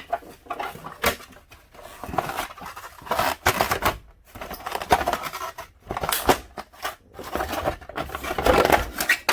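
Hand tools and motorcycle parts being worked: irregular bursts of clicking, scraping and rattling.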